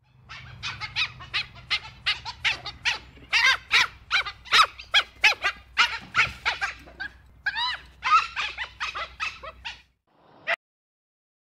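Dholes (Asiatic wild dogs) calling: a fast series of short, high-pitched squeaking calls, about three a second, which stop shortly before the end, followed by one last call.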